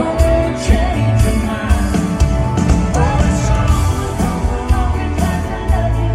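Live band music with a singing voice: a sung melody over drums, a steady bass line and guitar.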